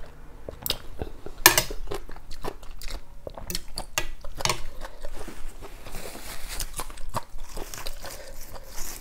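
Close-miked eating: a person biting and chewing a mouthful of noodle soup with crisp fresh greens, in many short, sharp, wet crunches and clicks. In the last few seconds there is a softer rustle as herb leaves are picked from their stems by hand.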